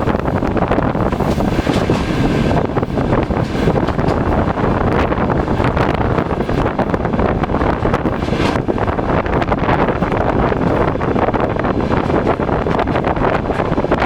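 2TE116 twin-section diesel locomotive running close by, a loud steady engine rumble, with wind buffeting the microphone.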